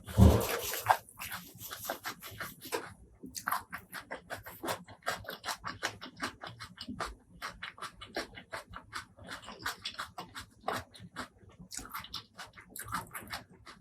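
Close-miked eating sounds: a quick run of wet chewing and smacking mouth clicks, with a loud thump just at the start.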